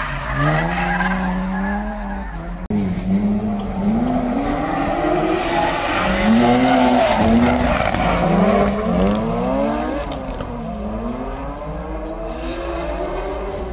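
Drift cars' engines revving hard, the pitch climbing and dropping again every second or so as the throttle is worked through the slides, over a haze of tyre squeal and skidding.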